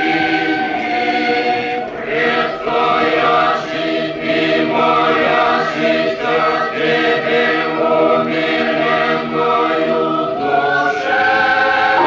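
Choir singing an Orthodox church chant, many voices holding long chords that change every second or so.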